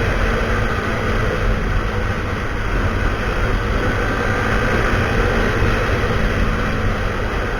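Husqvarna SMR 511 supermoto's single-cylinder four-stroke engine running steadily through a full Akrapovic exhaust system.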